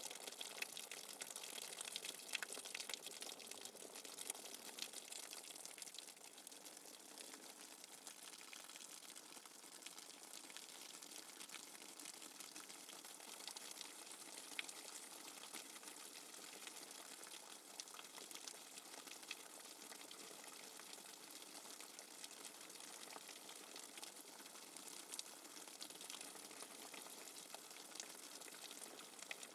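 Steady rain falling without thunder: an even hiss of countless drops, with small individual drop ticks scattered through it.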